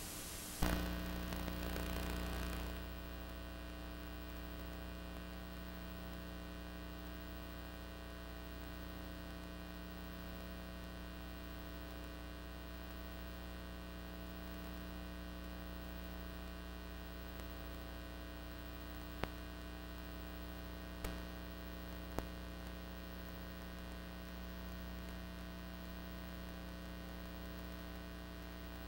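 Steady electrical mains hum with buzzy overtones. There is a brief rush of hiss just after the start and three faint clicks about two-thirds of the way through.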